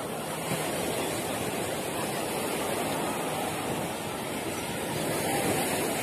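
Surf breaking on a sandy beach: a steady rush of waves, swelling a little near the end.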